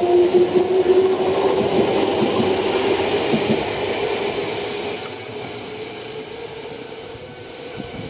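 Electric train pulling away, its traction motors whining in a tone that slowly rises in pitch as it gathers speed. The sound fades steadily as the train draws off, with a few clicks of the wheels along the way.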